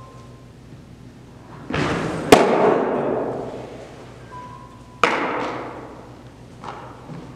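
A pitched baseball smacks into a catcher's mitt with a loud crack about two seconds in, and the crack echoes on through the large hall. A second sharp smack with a similar echo comes about five seconds in.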